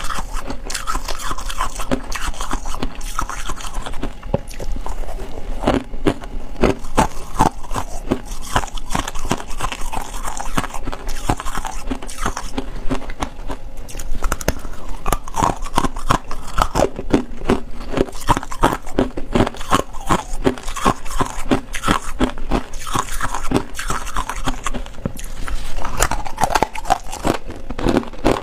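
Chunks of freezer frost ice being bitten and chewed: many sharp, irregular crunches in quick succession, with short pauses between bites.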